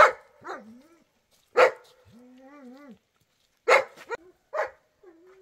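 A dog barking, with several sharp, loud barks a second or two apart and a wavering whine between them.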